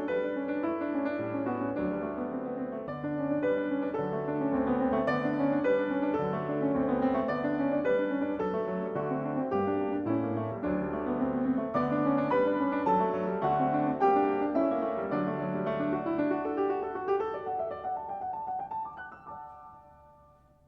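Background piano music, a steady run of many notes that fades out over the last few seconds.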